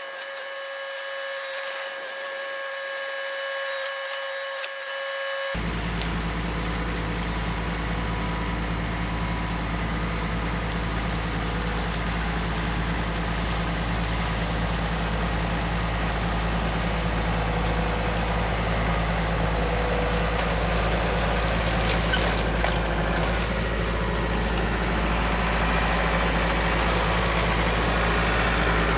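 A steady high-pitched electronic-sounding whine for the first five seconds, then an abrupt cut to a John Deere 4052R compact tractor's three-cylinder diesel engine running steadily as it pushes a brush pile with its grapple. The engine grows slowly louder as the tractor comes closer.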